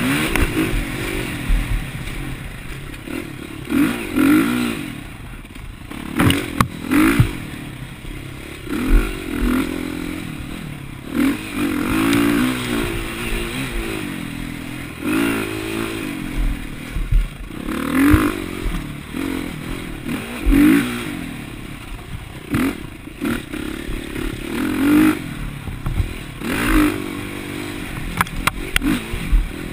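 Dirt bike engine revving up and easing off again and again, every second or two, as the throttle is worked over rough trail, with a few sharp knocks and rattles from the bike on the bumps.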